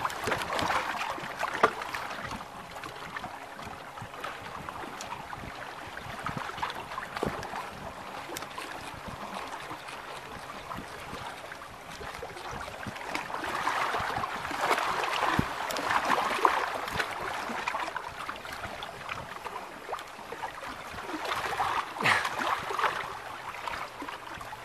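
Small waves lapping and gurgling against a boat hull, swelling now and then, with a few faint clicks.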